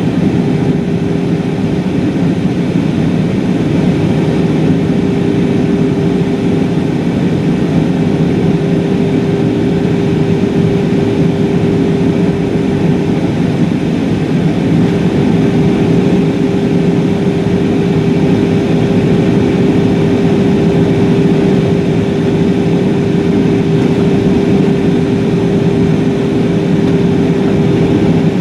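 Steady jet airliner cabin noise inside an Airbus A320-232 on approach: the rush of airflow and the hum of its IAE V2500 engines, with a constant tone held over it.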